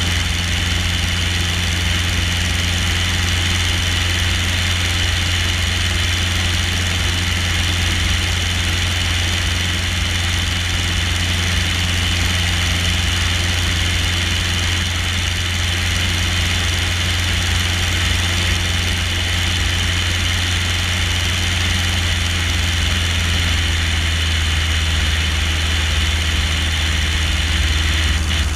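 Cessna 150E in flight, its four-cylinder Continental O-200 engine and propeller droning steadily, with wind rushing over the camera mounted outside on the landing gear.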